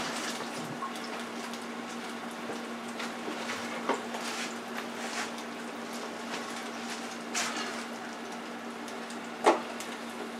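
Tempura-battered onion rings frying in an electric deep fryer: hot oil bubbling and crackling steadily over a low hum. A sharp clack sounds near the end.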